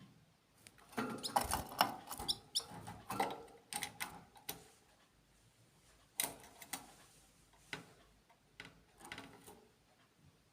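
Small birds chirping and squeaking in irregular short bursts, busiest in the first few seconds, with a few brief high chirps.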